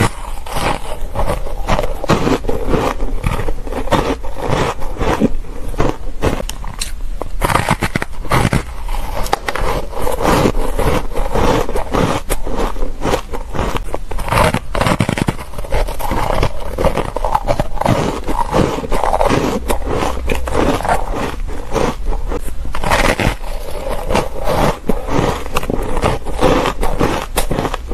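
Close-miked crunching as a stick of frozen ice foam coated in matcha powder is bitten and chewed: a dense, unbroken run of quick crisp crackles.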